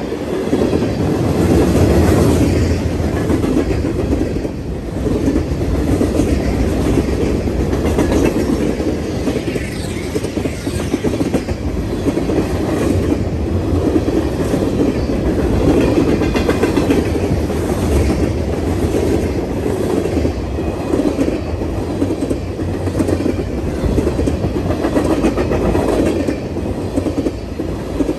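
Freight train of tank cars, covered hoppers and boxcars rolling past close by at a steady speed. Steel wheels rumble on the rails, with a repeated clickety-clack as the wheels cross rail joints.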